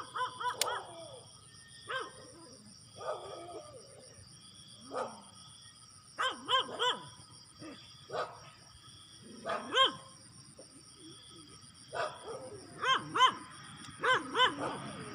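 A dog giving short, high yelping barks, singly and in quick runs of two or three, over a steady high chirring of insects.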